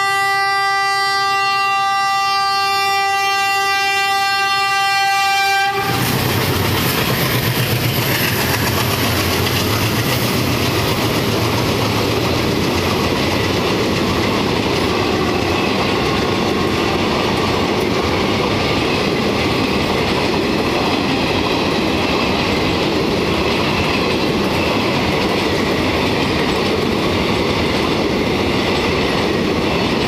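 A WDG-3A diesel locomotive's air horn blows one continuous blast and cuts off about six seconds in as the locomotive passes. Then its diesel engine and a long rake of high-capacity parcel vans rumble past, wheels clattering over the rail joints.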